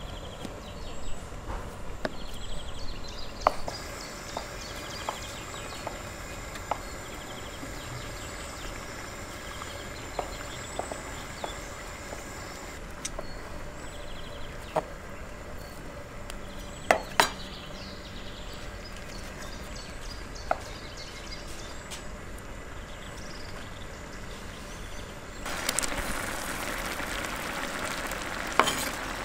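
Knife cutting cheese on a wooden cutting board, scattered sharp knocks of the blade on the wood. Near the end a steady sizzling begins from a large pan of sauce frying over a gas burner.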